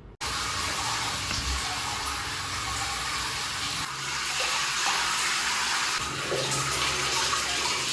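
Shower running: a steady spray of water that starts abruptly at the outset.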